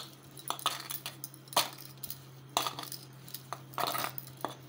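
Hand mashing and kneading a soft boiled-potato mixture in a steel bowl, with irregular clinks and scrapes of the hand against the steel.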